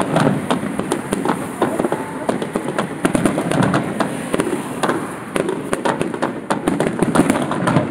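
Aerial fireworks display: shells bursting in a dense, irregular run of bangs and crackles with no pause.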